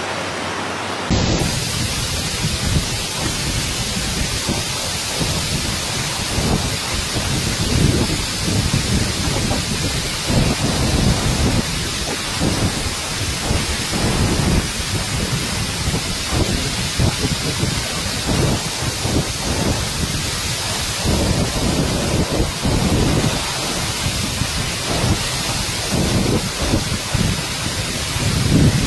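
Rushing floodwater from a river and waterfall in spate: a loud, steady rush with irregular deep rumbles.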